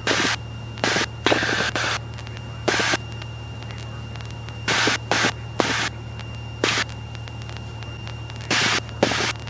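Irregular short bursts of radio static, about a dozen crackles of under half a second each, over the steady low drone of a Continental O-300-D engine in a Cessna 172E.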